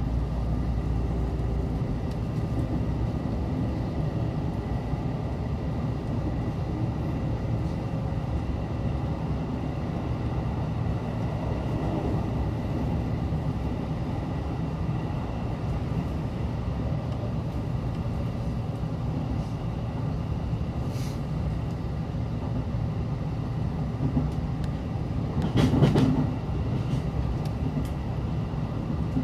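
JR Central 313 series electric train running, heard from inside the carriage: a steady rumble of wheels on rails, with a brief louder clatter near the end.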